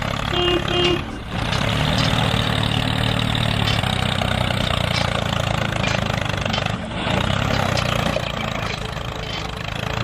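Small tractor engine running steadily, with brief dips about a second in and near seven seconds. A short beeping tone sounds near the start.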